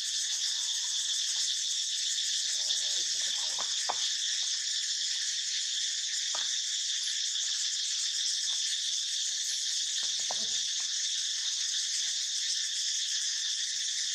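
Steady, unbroken high-pitched chorus of insects, with a few faint short sounds about four, six and ten seconds in.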